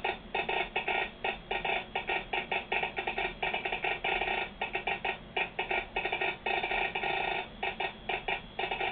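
American Morse code sent on a Vibroplex semi-automatic telegraph key (bug), heard as a rapid, uneven stream of short and long marks. It is a railroad train order setting where trains are to meet.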